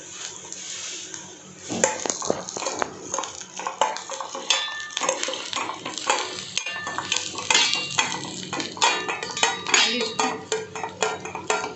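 A spoon stirring and scraping coconut pieces roasting in ghee around a stainless steel pan, with rapid clinks and ringing knocks against the metal that start about two seconds in.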